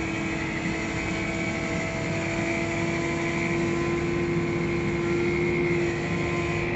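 Tractor engine running steadily, heard from inside the cab while driving: an even drone with a constant whine.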